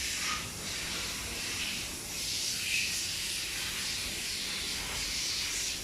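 A steady, even hiss of background noise, with no distinct sound standing out.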